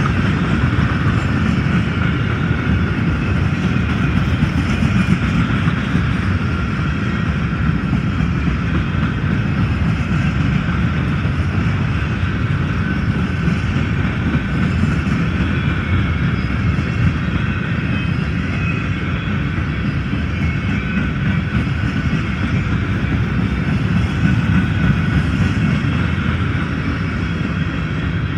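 Freight train's gondola cars rolling past at close range: a steady rumble of steel wheels on rail, with a thin high ringing tone above it.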